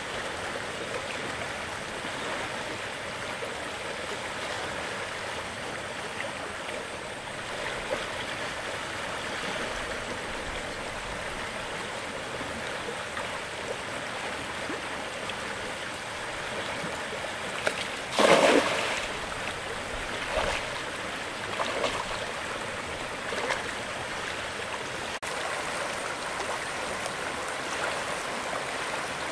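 Running stream water, a steady rushing. About eighteen seconds in there is one loud sudden noise, followed by a few smaller ones over the next several seconds.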